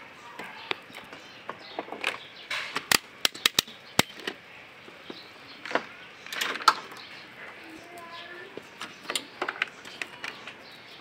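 Irregular sharp clicks and knocks, some in quick succession, with faint voices in the background.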